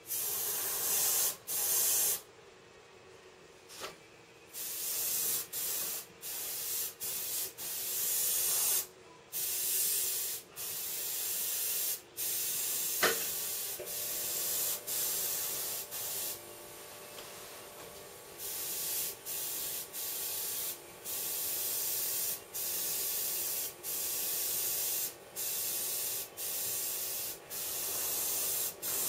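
Airbrush spraying paint in repeated bursts of high hiss, the trigger pressed and released every second or two with short pauses between. A single sharp click sounds about halfway through, and a faint steady hum runs underneath from then on.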